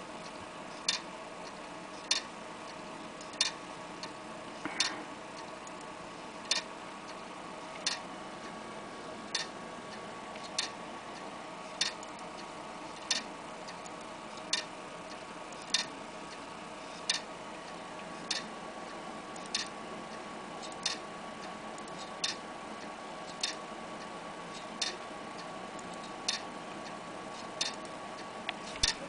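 Failing laptop hard drive clicking, one sharp click about every 1.3 seconds over a faint steady hum. This is the 'click of death' of a dead drive that the computer won't read or even detect.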